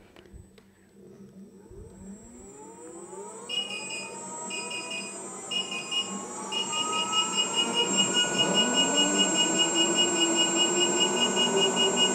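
Gotway RS-19 electric unicycle's hub motor spinning freely with the wheel held off the ground, its whine rising in pitch for several seconds and then holding steady near top speed. Its speed-alarm buzzer starts beeping about three and a half seconds in, first in spaced beeps and then continuously, the warning that the wheel is reaching its top speed.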